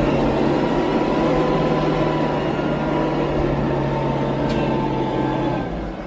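Heavy diesel engine running hard under load with a steady low drone, easing off near the end.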